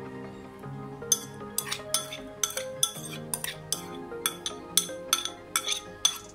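Metal spoon clinking and scraping against a ceramic bowl while scraping out the last of a chopped relish, a quick run of sharp clinks about three a second starting about a second in, over background music.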